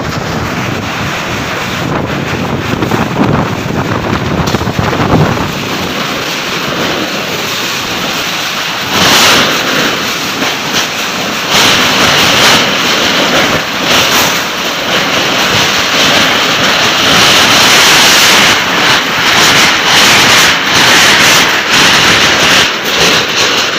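Strong storm wind rushing and gusting, buffeting the microphone, with gusts surging louder about nine seconds in and again near the middle and later on.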